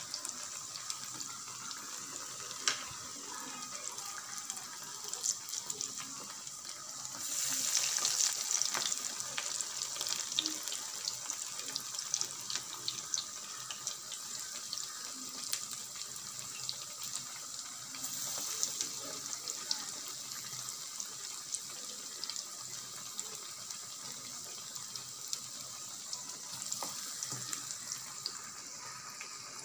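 Mutton keema vadas deep-frying in hot oil: a steady sizzle with fine crackling pops. It grows louder for a few seconds about seven seconds in, and again briefly around eighteen seconds.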